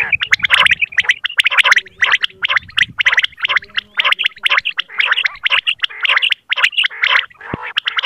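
Common quail (batair) calling: a fast, uneven string of short, sharp high notes repeated several times a second without a break.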